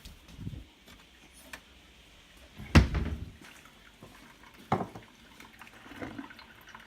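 A mug being fetched and set down: one sharp clunk about three seconds in and a smaller knock nearly two seconds later, over the faint trickle of a drip coffee maker still brewing.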